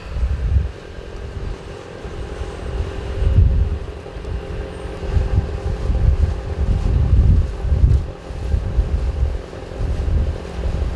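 Wind buffeting the microphone in irregular gusts, with a faint steady hum underneath.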